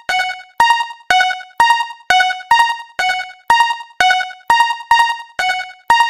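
Japanese railroad crossing warning bell ringing in an even, repeated pattern at about two strikes a second, each strike a bright ringing tone that dies away quickly.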